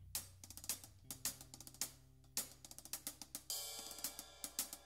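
A live band plays: quick hi-hat and cymbal strikes on a drum kit over held electric bass notes. About three and a half seconds in, more pitched instruments join and the music fills out.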